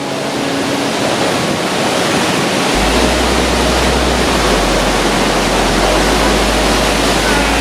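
Waterfall rushing loudly close by, an even, heavy roar of falling water. A steady deep rumble joins about three seconds in.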